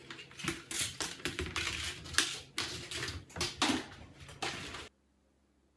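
A white plastic laundry basket clattering and scraping on a tile floor as a puppy pushes and paws at it, a quick run of sharp rattles and knocks. It cuts off suddenly near the end.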